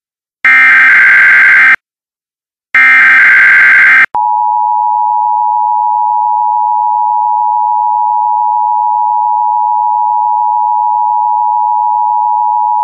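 Emergency Alert System tones. Two loud data bursts of the SAME digital header, each just over a second long with a short silence between, are followed about 4 s in by the steady two-tone EAS attention signal, 853 and 960 Hz sounded together, which holds.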